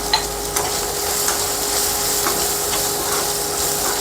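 Onion, green chilli and herb masala sizzling in hot oil in a pan while a spoon stirs it in, with light scrapes and taps of the spoon against the pan.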